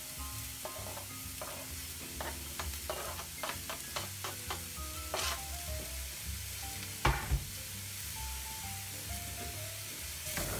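Onion, carrot and parsley sizzling in a frying pan, with a utensil clicking and scraping against the pan as the vegetables are stirred, and a sharper knock about seven seconds in.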